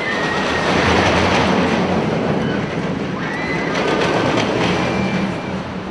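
A carnival ride's cars rolling along a rail track, a steady rumble that swells about a second in, with a few brief high wheel squeals.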